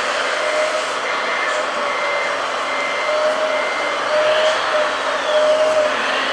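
Radio-controlled model construction machines running: a steady whine and hiss of small electric motors and hydraulic pumps, with short beeping tones coming and going and a brief rising whine about four seconds in.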